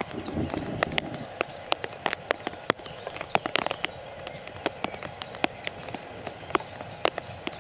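Small birds chirping in short, falling calls over a background of irregular sharp clicks and ticks.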